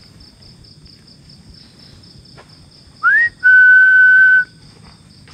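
A person whistling about three seconds in: a short upward-sliding note, then one long steady note, whistled as a lure for an answering call. Crickets trill steadily in the background.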